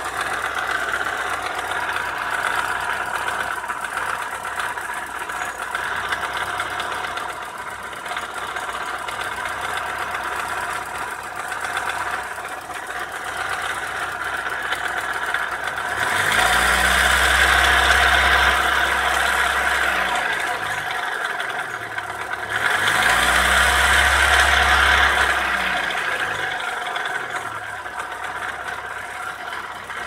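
Opel Astra F's warm 1.4 C14SE petrol four-cylinder running with a loud whirring, rattling and knocking, revved up twice for a few seconds each and falling back to idle. The noise comes from a failing coolant (water) pump.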